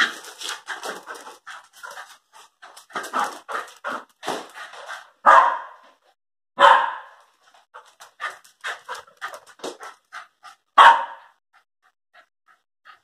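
Young Airedale and Lakeland terriers barking and panting as they run about, a quick string of short barks and breaths with three louder barks around the middle and near the end.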